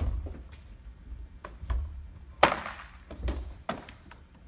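Tae Kwon Do strikes smacking into a handheld target pad: a run of about six sharp hits with uneven gaps, the loudest about halfway through.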